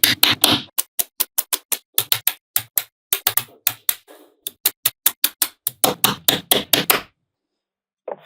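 Small magnetic balls clicking and snapping together in quick irregular runs of sharp clicks, several a second. The clicks stop for about a second near the end, then a few more follow.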